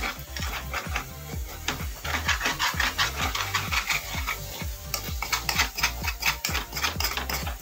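Spatula scraping and stirring around a metal wok full of thick tomato-sauced corned beef, potatoes and peas: quick repeated scrapes against the pan, busier and louder from about two seconds in.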